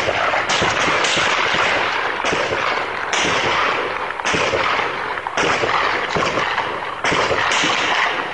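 A sudden loud blast, then a continuous dense crackle of explosive bangs, with a fresh burst about every second.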